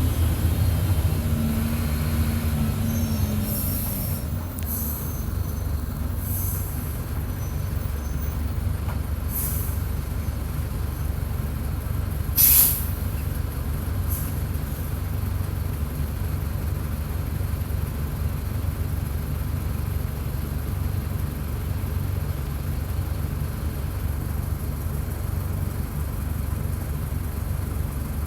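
Mercedes-Benz OF-1722 bus's six-cylinder turbodiesel engine running steadily, heard close to the engine. Several brief high hisses cut in over it, the loudest about halfway through.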